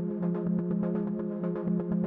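Electronic intro music: sustained synthesizer tones over a quick, steady pulsing beat.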